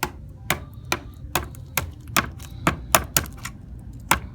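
A steamed hard-boiled egg being tapped to crack its shell for peeling: a run of sharp taps, about two to three a second.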